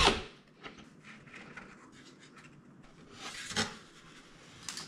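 A cordless drill cuts off at the start, then light rubbing and small wooden ticks as the balsa hatch is handled, with a louder knock about three and a half seconds in and a click near the end.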